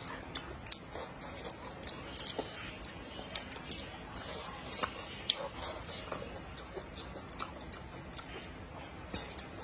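Close-miked eating of rice noodles: wet chewing and mouth sounds, broken by scattered short, sharp clicks and smacks.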